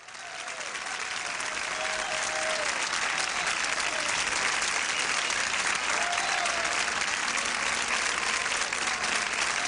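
Studio audience applauding: many hands clapping that swell in over the first second or so and then hold steady, with a few faint voices calling out.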